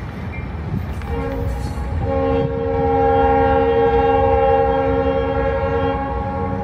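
Diesel freight locomotive's air horn sounding one long, level blast that begins about a second in and swells, over the rumble of the train.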